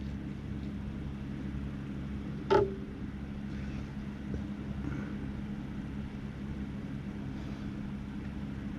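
Spinning reel being taken apart by hand: a steady low hum in the background and one sharp click with a brief ring about two and a half seconds in, as a part or tool knocks.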